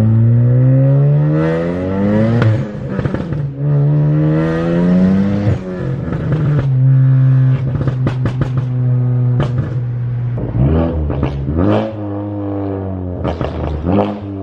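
Turbocharged four-cylinder of a Ford Focus ST with an aftermarket exhaust, accelerating hard through two gears: the pitch rises steeply, drops at each upshift, then holds steady. Near the end come quick throttle blips on the downshifts, with sharp crackles from the exhaust.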